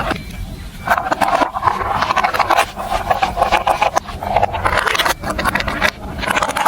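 Marbles rolling and rattling along a plastic marble-run track, a steady clattering roll full of small clicks, with short lulls.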